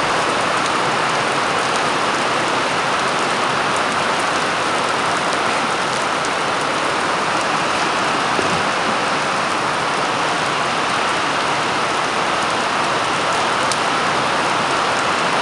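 Heavy rain falling steadily, an even hiss of pouring rain with scattered drop ticks.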